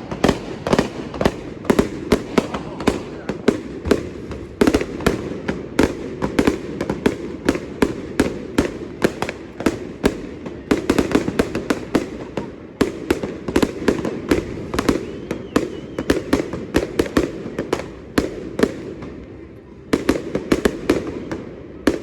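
Fireworks display: a rapid, almost unbroken string of sharp bangs and crackles, several a second, thinning out near the end before one last quick cluster.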